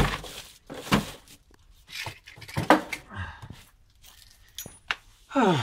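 Several sharp knocks and crinkling plastic sheeting as a heavy, plastic-wrapped box is handled and shifted on the floor. Near the end comes a man's falling groan.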